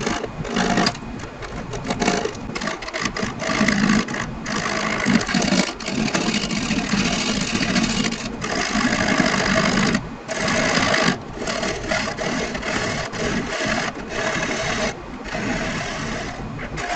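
Wood lathe spinning a square laminated wood blank while a turning tool cuts off its corners: a rough, chattering interrupted cut that runs on with a few brief pauses where the tool comes off the wood.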